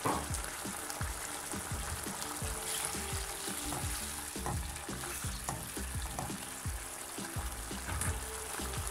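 Tomato and red onion sauce sizzling in a non-stick frying pan, stirred with a spoon around the middle.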